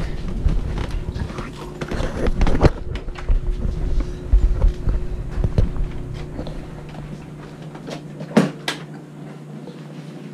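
Knocks, clicks and rattles as a motorcycle seat is worked loose and lifted off, with rumble from the microphone being moved around and a steady low hum underneath. Two sharp clicks come about eight and a half seconds in.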